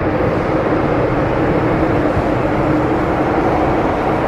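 Inside an MTR M-Train metro car on the move: the loud, steady rumble of the wheels and running gear on the rails, with a steady hum under it.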